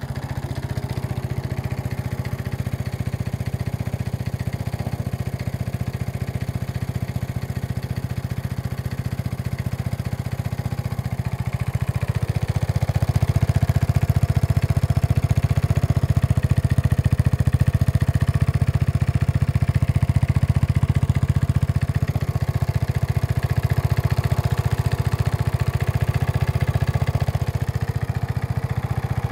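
Briggs & Stratton 3.5 HP single-cylinder lawn mower engine, fitted with a homemade pipe exhaust, running steadily while it warms up after a cold start in −15 °C. It grows louder for about ten seconds in the middle.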